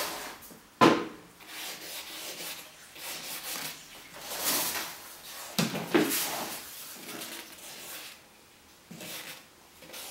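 Gloved hands rubbing and scraping frost off the sides of a plastic storage box chilled by dry ice, in irregular strokes. Two sharp knocks stand out, about a second in and again near the middle.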